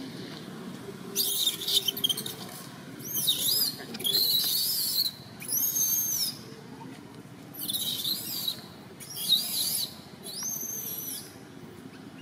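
Baby long-tailed macaque crying: about seven shrill, high-pitched squealing calls, each under a second and arching up and down in pitch, the distress cry of an infant wanting to nurse and being refused by its mother.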